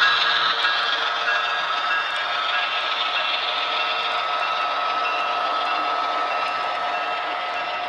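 HO scale model diesel locomotives and a freight car rolling past close by: a steady clatter and rattle of small wheels on the track with a thin steady whine, and a faint high ping repeating a few times a second.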